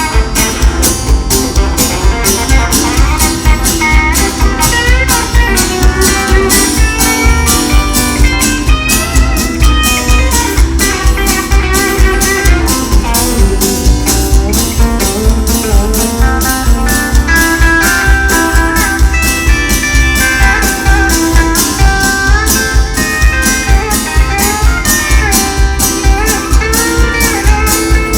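Live band music with guitar over a steady drum beat, in a bluesy style.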